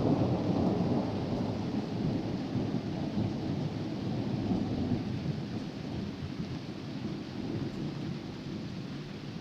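Rolling thunder rumbling low and slowly dying away, over steady rain.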